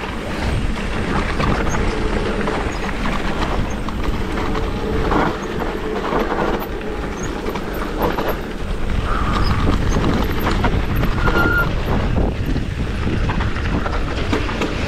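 Electric mountain bike riding fast down a dirt singletrack: wind buffeting the camera microphone, tyres on loose dirt, and the bike rattling over bumps, with a couple of brief high squeaks.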